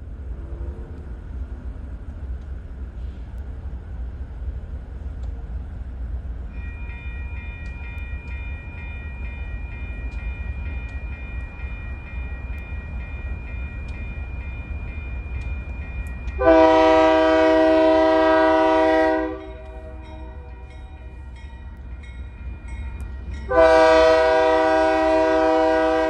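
Locomotive air horn sounding two long blasts, each about three seconds and some seven seconds apart, as a train approaches a grade crossing. Under it runs a low steady rumble, and from about a quarter of the way in the crossing's warning bell rings with a thin steady high tone.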